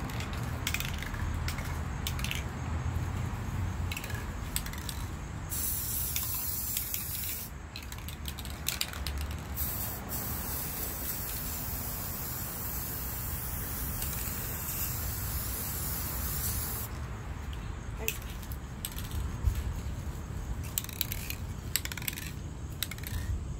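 Aerosol spray paint can spraying: short bursts at first, longer near-continuous sprays through the middle, then short bursts again.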